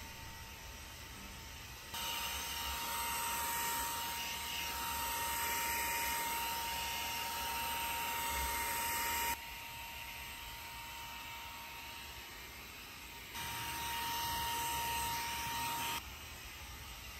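Xiaomi mini handheld vacuum cleaner running with a steady high motor whine and rushing air. It runs for about seven seconds from about two seconds in, then again for a couple of seconds near the end, starting and stopping abruptly each time.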